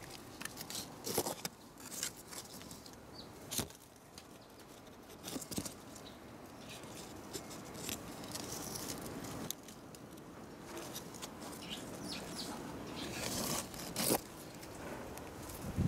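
Camellia leaves and twigs rustling and brushing close to the microphone, with scattered sharp crackles and knocks.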